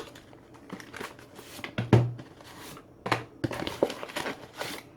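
Cardboard product box being opened and its packaging handled: irregular rustling, crinkling and light clicks, with louder knocks about two and three seconds in.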